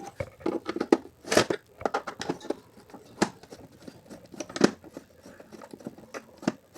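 Wall clock's case being pried open by hand to free the front glass: irregular clicks and scraping, with three sharper snaps spread through.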